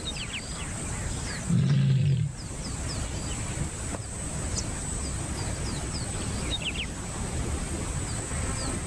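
Lioness calling: one low call about a second and a half in, lasting under a second, the call of a female in heat. Short high chirps sound faintly over a steady outdoor background.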